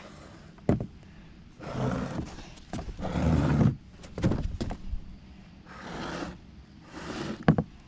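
Quad bike plastic body panels being slid and shifted across a work surface: several short scraping sounds with a few sharp knocks between them.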